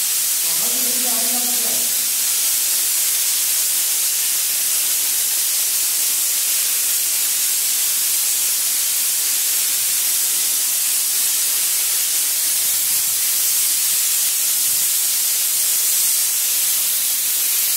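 Airless spray gun spraying wall putty from a high-pressure hose: a steady, even hiss from the nozzle, unbroken throughout.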